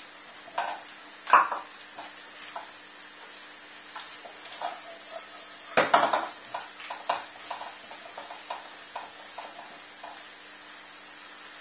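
Raw broccoli florets sizzling in a hot wok with a little oil, stirred with a spatula. Scrapes and knocks against the pan run through the sizzle, with the loudest about a second in and about six seconds in.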